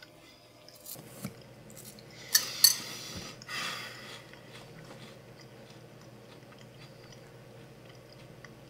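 A spoon clinking and scraping in a cereal bowl, with two sharp clinks about two and a half seconds in, and cereal being chewed. The rest is faint room tone.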